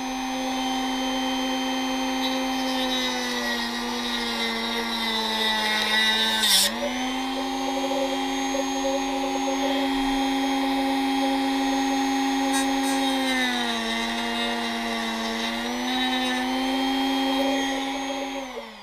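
Dremel rotary tool with a cut-off disc running at high speed, a steady whine whose pitch sags as the disc bites into the plastic speed-controller case. There is a brief harsh grinding burst about six and a half seconds in and a longer sag later on, and the tool winds down at the very end.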